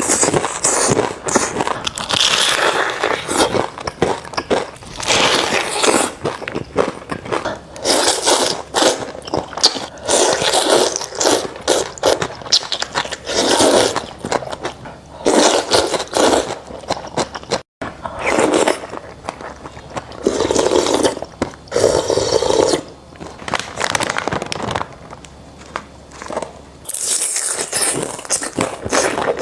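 Close-miked mukbang eating sounds: irregular bites, chewing and crunching with scraping noises, coming in bursts with short pauses.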